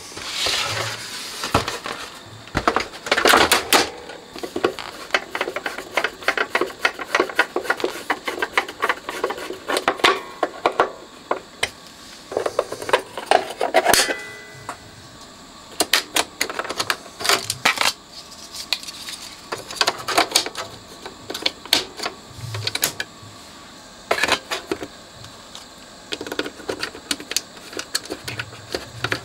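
The plastic cover of a Telefunken CR100 boom box is being fitted back on, giving irregular clicks, knocks and small clattering rattles, some in quick clusters.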